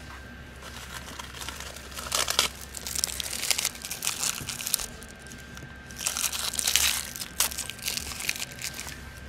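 Small plastic packet crinkled and crumpled between the fingers, in two spells of crackling, the second near the end.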